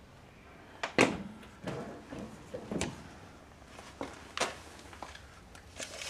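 Handling knocks and clicks of a refrigerator's freezer door and a steel tape measure being set against its wall: a few separate sharp knocks, the loudest about a second in, with quieter clicks spread through.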